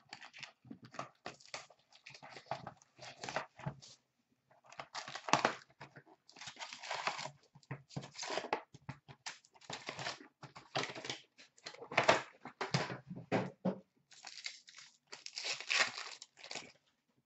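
Plastic shrink wrap being torn off a cardboard box of hockey cards, then the box flap opened and the foil-wrapped card packs pulled out and handled: irregular tearing, rustling and crinkling with short pauses.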